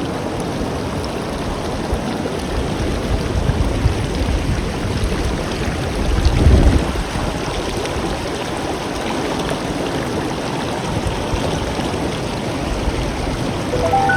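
River water flowing steadily, with a brief louder low rush about halfway through.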